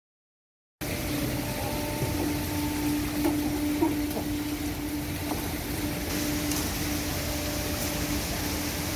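A second of dead silence at a cut, then a steady engine hum over a low rumble, with a few faint knocks.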